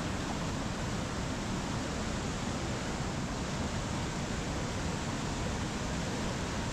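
Monsoon-swollen Himalayan mountain river in flood, rushing and churning over boulders: a steady, even roar of whitewater.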